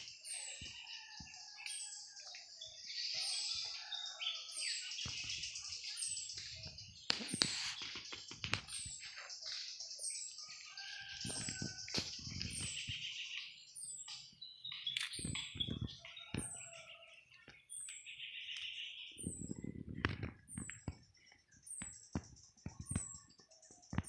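Forest birds and insects calling, led by a short, high chirp repeated about once a second over a busy chatter of other calls. Occasional low thumps and rustles come and go.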